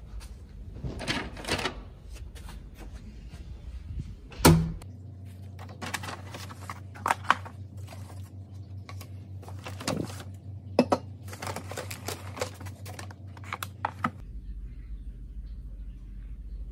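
Brown paper takeaway bag rustling and cardboard food boxes being handled, in irregular bursts of crinkling and small clicks, with one sharp knock about four and a half seconds in.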